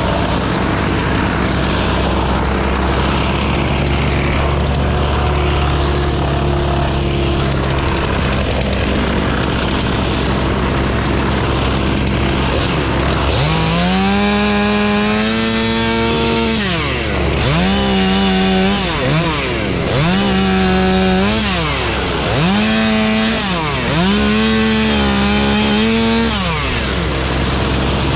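A steady engine drone, with a chainsaw brought up to full throttle five times over the second half. Each rev is held for one to three seconds before dropping back.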